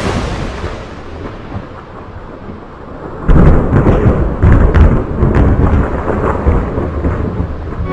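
Thunder sound effect: a dense rumble with crackles that suddenly surges louder about three seconds in.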